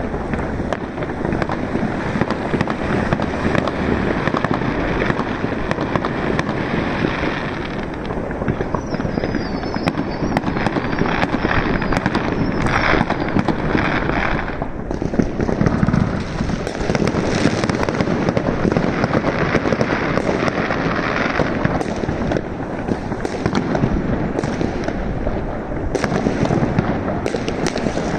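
Fireworks and firecrackers going off in great numbers all around, a dense, continuous crackle of bangs and pops. A faint wavering whistle sounds about nine seconds in.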